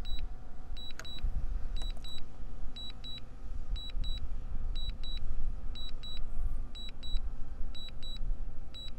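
Wind rumbling on the microphone, with a drone remote controller's warning beeps sounding in quick pairs about once a second. The DJI Mini 3 Pro's propeller hum is faint underneath.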